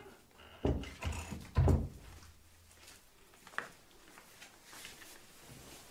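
Three dull thumps within the first two seconds, then a single sharp click about three and a half seconds in, from a wooden door being handled in a small room.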